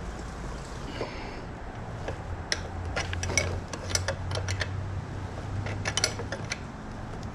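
Metal tools clicking and clinking against a Toyota Celica GT-S six-speed manual transmission as it is pried and worked apart, a scatter of sharp irregular clicks starting about a third of the way in.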